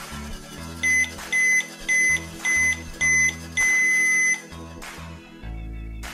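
Toy microwave oven's electronic beeper sounding six high beeps, five short ones and a longer final one, the end-of-cycle signal, over background music.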